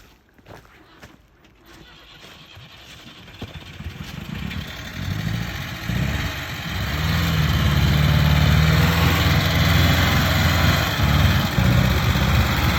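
LuAZ-969 off-roader's V4 engine growing steadily louder over several seconds as the vehicle draws near, then running loud and uneven; the owner says the engine is coughing, but it keeps driving.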